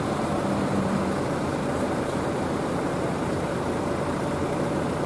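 Road traffic on wet asphalt: a bus and cars driving away, a steady mix of engine hum and tyre noise with no sudden sounds.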